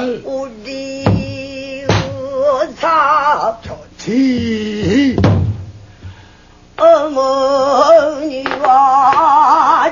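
Pansori singing by a woman, long held and sliding notes with a wide vibrato, accompanied by several sharp strokes on a buk barrel drum.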